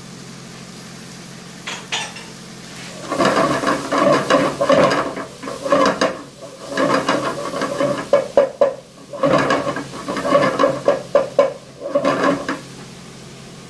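A metal spatula stirring and scraping against a nonstick pot as shredded vegetables stir-fry over a steady sizzle. Quick runs of scraping and clattering strokes with a slight metallic ring start about three seconds in and stop shortly before the end.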